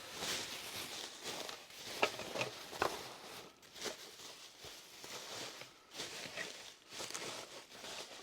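Plastic bubble wrap rustling and crinkling as it is wrapped around an object, with a few sharper crackles.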